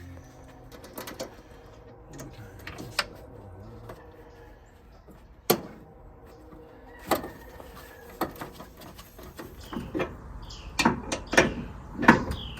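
Scattered sharp clicks and knocks: a single strong one about five seconds in, then a quick run of them near the end.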